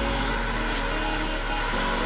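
Eachine Wizard X220 quadcopter's brushless motors whirring steadily in a hover, under electronic music whose deep bass comes in right at the start.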